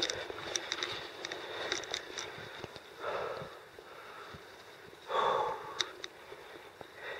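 A person breathing through the nose and mouth on an uphill climb, with two loud breaths about three and five seconds in, over scattered small clicks.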